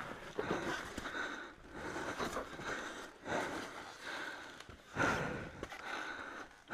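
Heavy breathing of a person out of breath, a loud breath roughly every second, from the effort of wrestling a dirt bike up rock steps.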